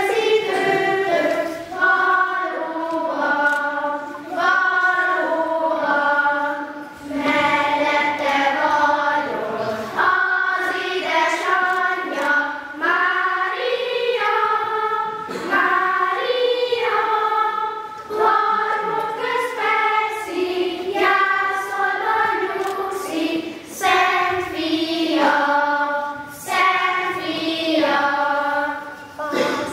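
A group of children singing a song together on stage, phrase after phrase with short breaks between lines.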